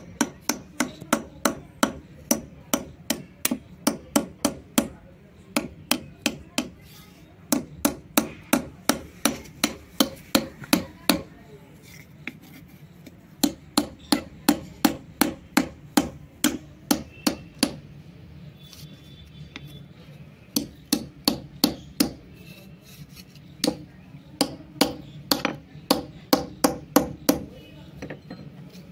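Hammer tapping the spine of a knife blade to drive it into a slab of white shale and split it. Quick runs of sharp taps, about three a second, with short pauses between runs.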